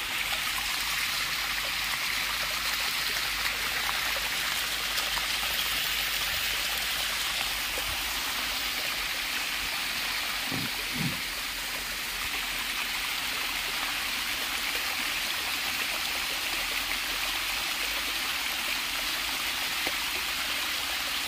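A thin stream of water running and splashing down the sloping concrete face of a dam: a steady rushing trickle.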